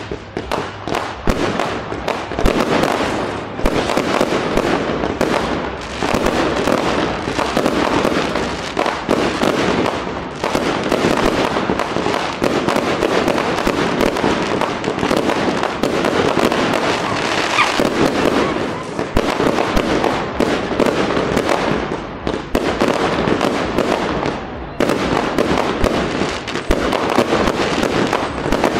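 Aerial fireworks display: a rapid, almost unbroken barrage of shell bursts and crackling, with a few short lulls.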